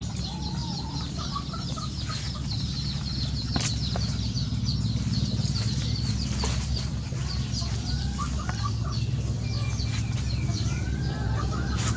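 Chickens clucking amid constant, rapid high-pitched chirping, over a steady low hum.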